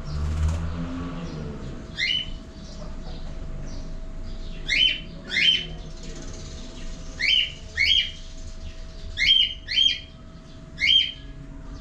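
Cockatiel calling: about eight short, loud, upward-sweeping chirps, several in quick pairs about half a second apart. A steady faint hum runs underneath.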